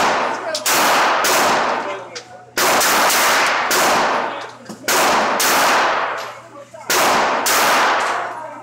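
Semi-automatic .22 LR pistol fired in pairs: four double taps, the two shots of each pair about half a second apart, every shot echoing off the walls of the indoor range.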